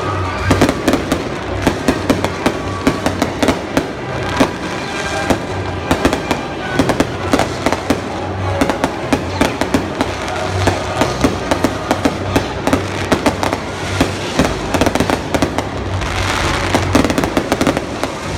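Fireworks display going off in rapid succession: many sharp bangs and crackles, several a second, growing into a denser crackle near the end.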